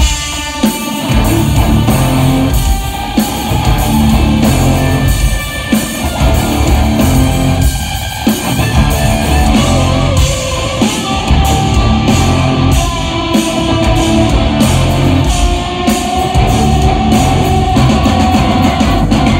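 Live rock band playing an instrumental passage, electric guitar over a drum kit, loud and steady.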